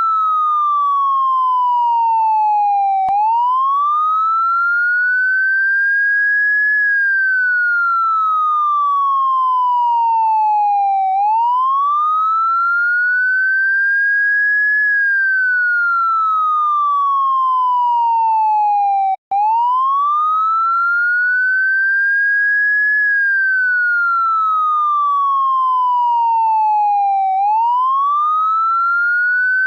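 Electronic police siren sounding a slow wail. A single clean tone sweeps quickly up, then glides slowly back down, repeating about every eight seconds, with a momentary break about 19 seconds in.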